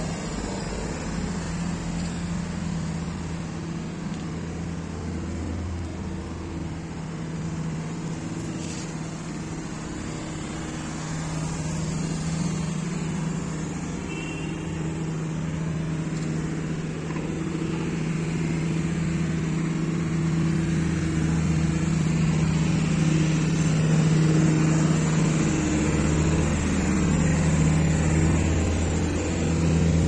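Steady engine hum of road vehicles, growing louder in the second half.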